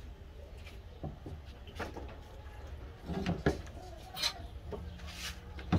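Blue PVC pipe fittings knocking and clicking as they are handled and set down on a rubber mat: a run of separate short knocks, the loudest a little over three seconds in.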